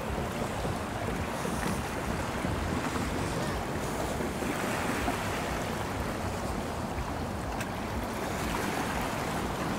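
Steady seaside wind and sea noise, with wind buffeting the microphone.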